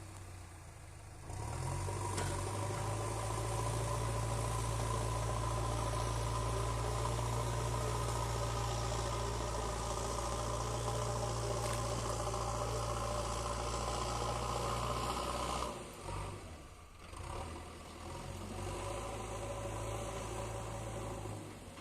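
Diesel engine of a JCB excavator running. It steps up to a higher, louder running speed a little over a second in and holds steady, then drops off sharply about three-quarters of the way through and settles back to a lower, quieter run.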